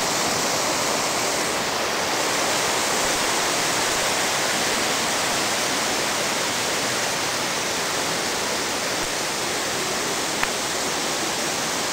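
Large waterfall about 15 m high pouring into its pool: a loud, steady rush of falling water. A single brief click about ten seconds in.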